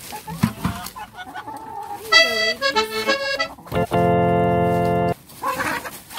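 Hens clucking, with an organ-like musical sound effect laid over them: a run of notes about two seconds in, then a steady held tone for about a second, the loudest part.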